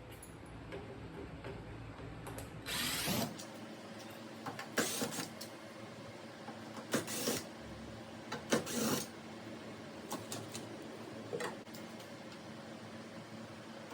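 Handheld power driver running in several short bursts, working the bolts for a mirror mount.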